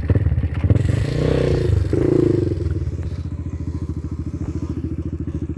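Motocross dirt bike engine revving up, then dropping to an even, rapid low-speed putter about two and a half seconds in.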